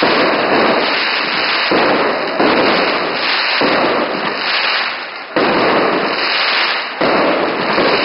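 A mascletà: a dense barrage of gunpowder firecrackers going off in such rapid succession that the bangs run together into one continuous noise, jumping louder several times.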